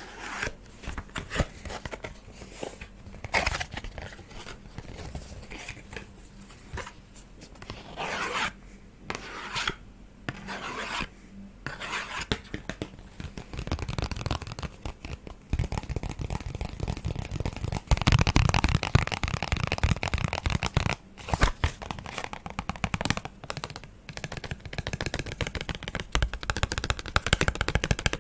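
Close-miked ASMR trigger sounds: fingers tapping and scratching on objects, first as separate short strokes, then, about halfway through, a dense run of rapid scratching.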